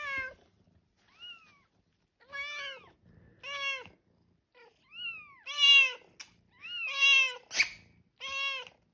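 Bengal cats meowing, the kittens and their mother: a run of about eight short, arched meows at two pitches, some higher and thinner, some lower and louder. A brief scratchy rustle comes about seven and a half seconds in.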